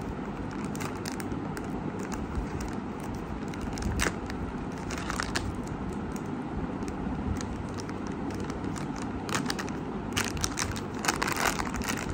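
Plastic wrapper of a makeup sponge crinkling and tearing as it is peeled open by hand, in scattered crackles that come thickest near the end, over a steady low background rumble.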